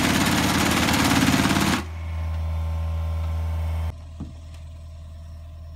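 Hydraulic vibratory pile driver on a John Deere mini excavator's arm running as it pushes a vinyl sheet pile into the ground, a loud dense rattle that stops sharply about two seconds in. The excavator's diesel engine then runs on steadily, dropping suddenly to a quieter idle about four seconds in.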